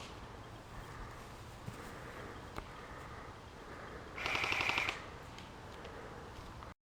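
Airsoft gun firing a short full-auto burst of rapid, evenly spaced shots lasting under a second, about four seconds in.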